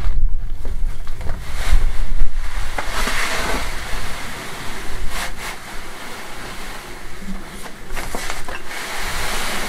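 A load tipped out of a steel wheelbarrow, sliding and pouring out over a couple of seconds, with wind rumbling on the microphone and a few knocks of the barrow being handled afterwards.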